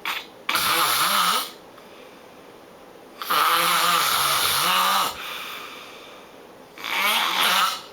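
A person snoring very loudly: three long snores, the middle one the longest at about two seconds, each with a low, wavering, fluttering pitch.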